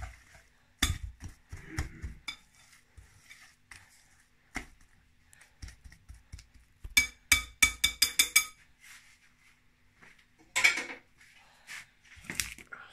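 Coconut dough being mixed in a glass mixing bowl: scattered knocks and scrapes against the glass. About seven seconds in comes a quick run of sharp clinks that ring off the bowl.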